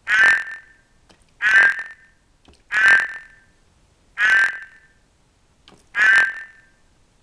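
Ceratophrys horned frog calling: a male's mating call. Five loud croaks about half a second each, repeated about every one and a half seconds, each starting sharply and fading out.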